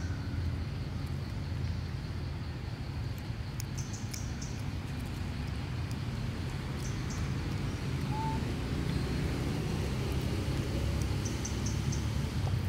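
Forest ambience: a steady low rumble with scattered short, high bird chirps, and one brief whistled note about eight seconds in.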